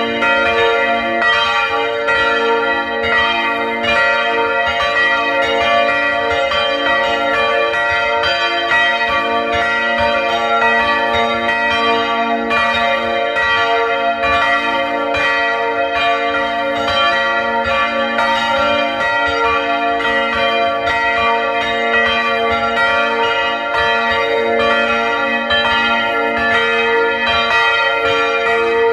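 Full peal of the chapel's three church bells swinging together, heard close up in the belfry: the clappers strike one after another in an uneven, overlapping rhythm, their tones ringing on into each other.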